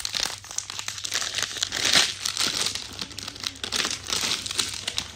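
A plastic foil snack packet crinkling and crackling in the hands as it is pulled open, loudest about two seconds in.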